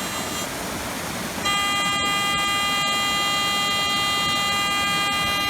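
Metal detector giving a steady, unwavering target tone that starts about a second and a half in and holds, over the steady rush of a waterfall.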